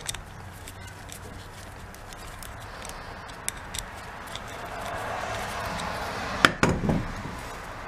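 Small clicks and scrapes of a screwdriver working the terminal screws on a power tool switch, with a sharper click about six and a half seconds in followed by a brief clatter. A steady background noise grows louder from about five seconds in.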